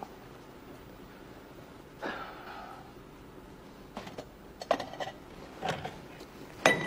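Metal ice bucket and drinking glasses being handled: a few light clicks and knocks, then a sharper ringing clink near the end.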